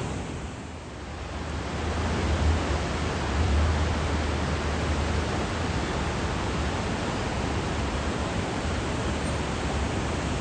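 Rushing water of a river in flood, a steady noise that dips briefly about a second in, with a low rumble in the first half.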